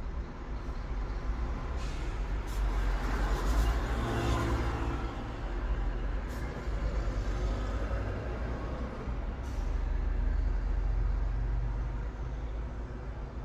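Low traffic rumble heard from inside a car cabin, swelling louder twice, about four seconds in with a rising hiss and again around ten seconds, as vehicles pass.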